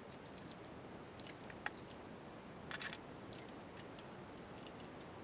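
Faint, irregular small clicks and plastic taps from spark plug leads being pulled off an engine's spark plugs, with a short cluster of rattling about three seconds in. The engine is not running.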